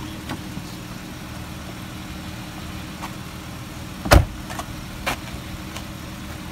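Car engine idling steadily, with a car door shutting in one loud thump about four seconds in.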